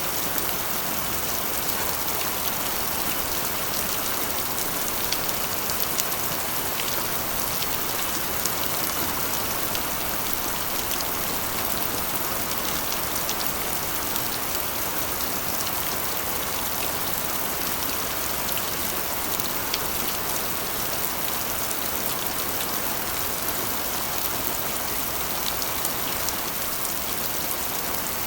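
Steady rain drumming on a corrugated iron roof: a dense, even patter with many sharp individual drop ticks on the metal.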